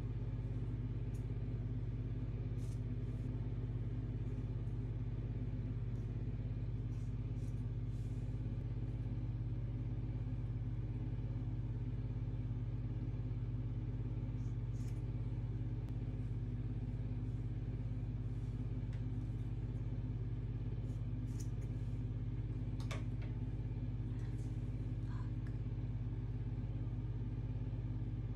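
A steady low hum, with a dozen or so faint, short snips of scissors cutting twisted sections of hair, a second or several seconds apart.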